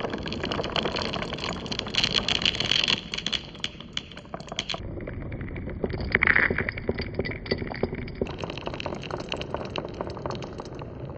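Many marbles rolling and clattering along a marble run, a dense stream of clicks and rattles over a rolling rumble. The sound changes character twice, about 5 s and 8 s in, and is loudest just after 6 s.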